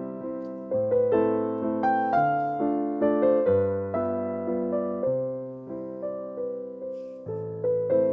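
Background music: a gentle piano piece, with chords and notes struck about once a second and left to fade.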